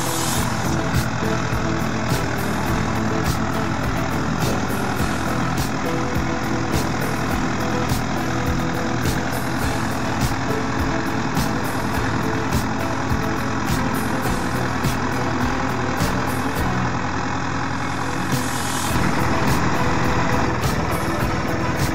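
A SAME Frutteto tractor's diesel engine runs steadily with a towed Gregoire grape harvester, with frequent light clicks. The sound changes and gets a little louder about three seconds before the end.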